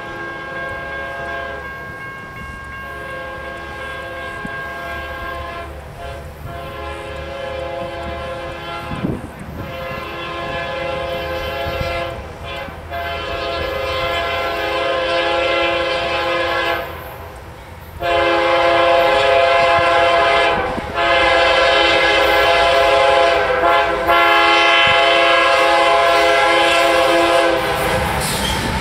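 CSX diesel freight locomotive's air horn sounding a multi-note chord in a series of long blasts with short breaks, growing louder as the train approaches. Near the end the horn stops and the rumble of the locomotive passing takes over.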